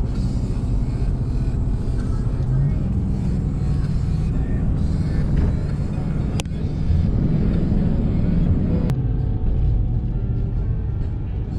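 Steady road and engine rumble heard inside a moving vehicle's cab, with music playing underneath. Two sharp clicks about six and nine seconds in, after the second of which the sound turns duller.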